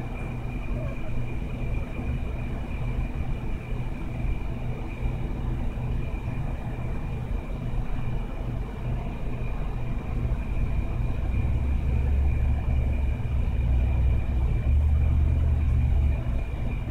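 A steady low rumble with a faint constant high whine, growing louder for a few seconds past the middle.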